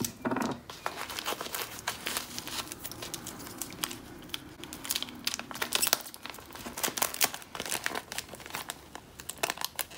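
An empty crisp packet crinkling and crackling as it is pressed and handled while being taped shut with sellotape, in dense irregular crackles.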